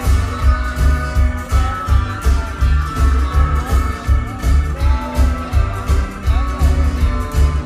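Rockabilly band playing live at a steady beat: upright bass, drums and guitars, with a stepping bass line and regular drum hits.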